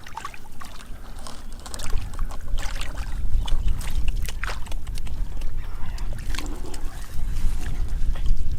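Shallow rice-field water splashing and sloshing in irregular bursts as it is waded through and stirred by hand, over a steady low rumble.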